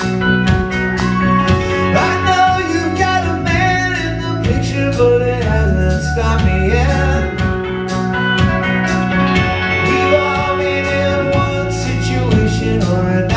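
Rock band playing live: electric bass, drums and guitar keep a steady beat, with singing over the top.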